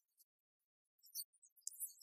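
Near silence, with faint scattered high-pitched ticks and chirps.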